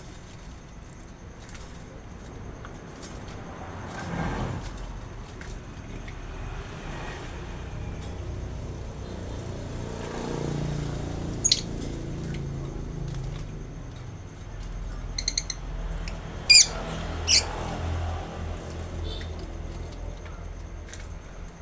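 Birds chirping: a few short, sharp calls, including a quick rattling run and two loud chirps about two-thirds of the way through. Underneath are a thin steady high tone and the low rumble of traffic passing now and then.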